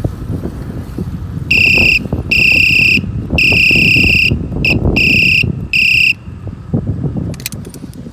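Electric bike horn sounding a series of about six blasts of one steady high-pitched tone, some short and some held for about a second, starting about a second and a half in. Under the blasts there is a steady low rumble from riding the mountain bike.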